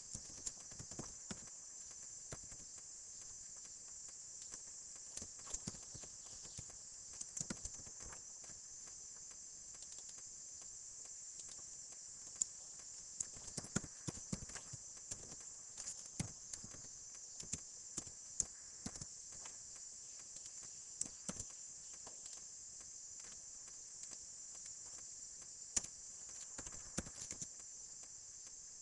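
Computer keyboard typing: irregular short key clicks, singly and in quick clusters, over a steady high hiss.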